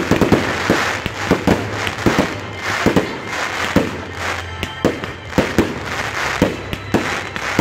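Aerial fireworks display: shells bursting in quick, irregular succession, about two to three bangs a second, with crackling from the stars between the bangs.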